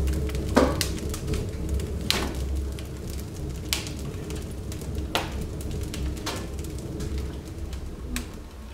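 Wood fire burning in an open wood stove, with sharp crackles and pops a few times, while split firewood is laid onto it with light wooden knocks. A steady low hum runs underneath.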